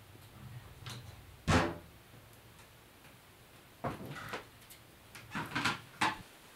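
A single sharp thump about a second and a half in, then a few footsteps on a wooden floor as a person walks into the room, with soft knocks near the end.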